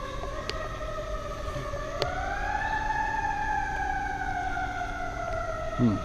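A wailing siren, its pitch climbing slowly about two seconds in and then sinking gradually. A click comes about two seconds in, and a short, loud falling sound near the end.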